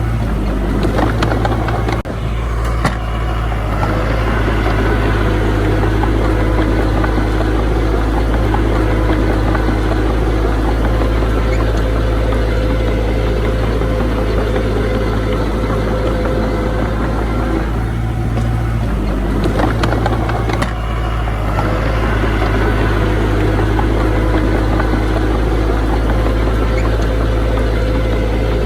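Diesel engine of heavy earthmoving machinery running steadily and loudly, with brief changes about two seconds in and again between eighteen and twenty-one seconds.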